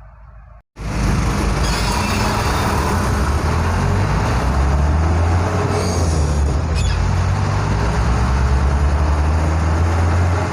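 Delivery truck's engine running steadily under way, a loud low drone with road noise in the cab. It cuts in abruptly under a second in, after a moment of quieter sound.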